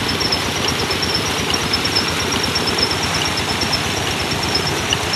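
Tube-well pump engine running steadily, with an even, continuous chugging.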